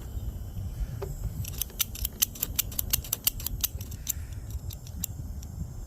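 A handheld torch's igniter clicking over and over in quick succession, about six clicks a second, then a few more scattered clicks: repeated tries to light the torch that have not yet caught. A low rumble of wind buffeting the microphone runs underneath.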